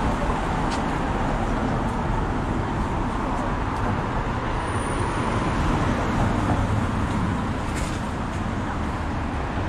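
Steady road traffic noise from cars on a city street.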